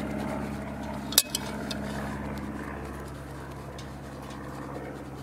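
A spoon stirring wet cake mix in a cast-iron Dutch oven, with one sharp clink of the spoon against the pot about a second in, over a steady low hum.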